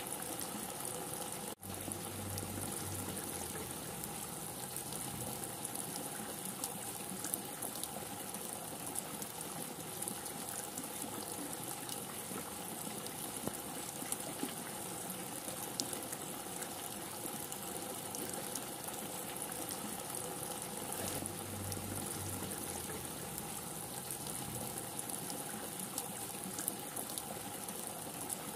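Steady rain: an even hiss with scattered ticks of drops, broken by a sudden short gap about a second and a half in.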